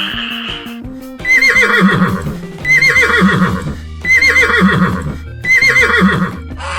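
Horse whinnying four times in a row, each whinny a quavering call that falls away, over background music.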